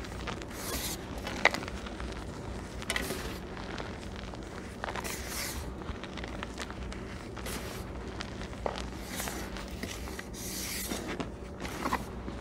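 Hands squeezing and kneading crushed dyed gym chalk mixed with holi powder: soft crunches and powdery rustles at irregular intervals, with a sharp click about a second and a half in.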